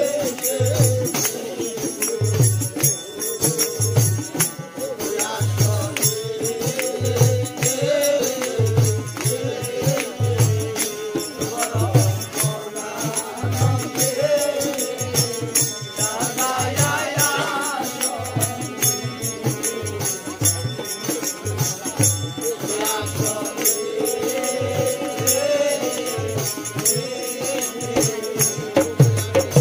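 Live Bengali baul folk song: a wavering sung melody over a harmonium, with a barrel drum beating a steady low rhythm and jingling hand percussion.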